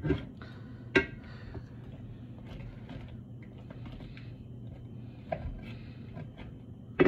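A cooking utensil knocking against a skillet a few times, with a sharp knock about a second in and the loudest one at the very end, over a steady low hum.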